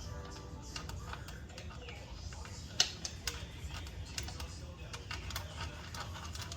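Irregular light clicks and clinks of hand tools and small metal parts being handled while working on the motorcycle's primary drain plug, with one sharper click about three seconds in.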